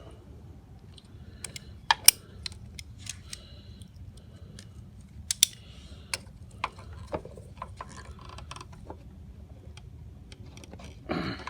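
Irregular sharp metallic clicks and clinks of a hand tool working at a lawn mower's oil drain plug, which is stuck tight, over a steady low hum.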